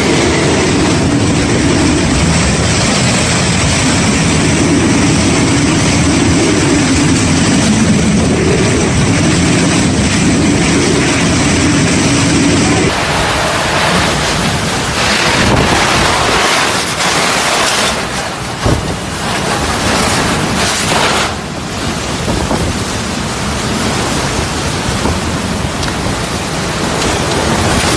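Hurricane wind blowing hard across the microphone, with a continuous rushing of storm rain and surf. The sound changes abruptly about halfway through, where a different recording takes over.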